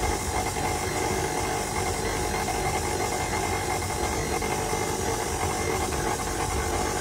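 Electric stand mixer running steadily, its motor humming and whining evenly as the dough hook turns flour and liquid into dough.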